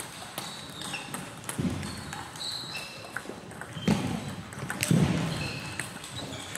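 Table tennis ball clicking sharply off bats and table, with short squeaks and a few dull thumps, the loudest about five seconds in.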